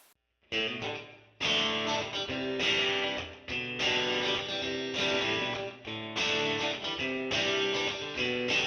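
Background music led by guitar, starting about half a second in after a moment of silence.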